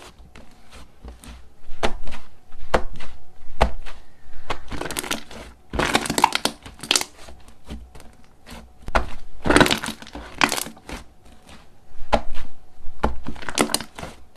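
Slime being squeezed and pressed by hand, crackling in several bursts of many quick clicks with single pops in between.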